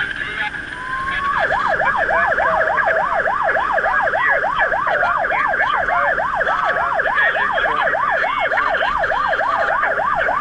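Fire truck's electronic siren heard from inside the cab, switching from a slow rising wail to a fast yelp, about three and a half sweeps a second, a second or so in, and back to the wail at the very end, over a steady high tone. The truck is running an emergency response.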